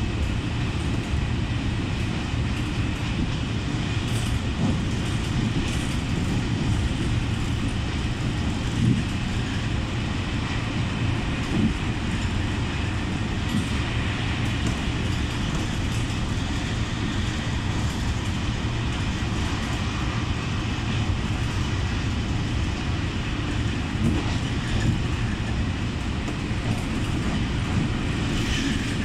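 Passenger train running, heard from inside the carriage: a steady low rumble with a hiss above it and a few light knocks from the wheels and car.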